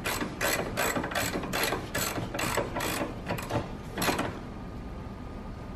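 Hand ratchet wrench clicking in quick, even strokes, about three a second, as the bolt holding the air filter housing is tightened down; the clicking stops about four seconds in once the bolt is snug.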